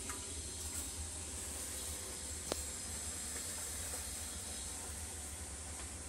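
Steady background hiss with a low rumble underneath, broken by one sharp click about two and a half seconds in.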